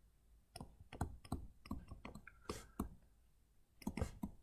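Faint, irregular ticks and taps of a stylus on a tablet screen during handwriting.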